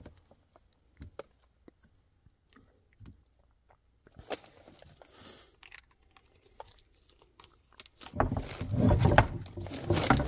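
Hands working a CSST gas tubing fitting: scattered light clicks and taps of the metal parts, then from about eight seconds in a louder, dense stretch of close handling noise with many sharp ticks.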